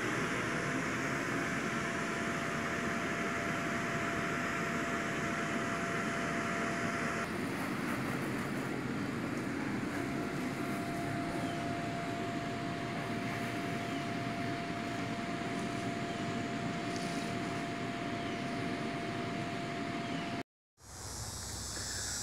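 Electric blower of an inflatable water slide running steadily: an even whooshing hum with one constant tone. It cuts off suddenly near the end.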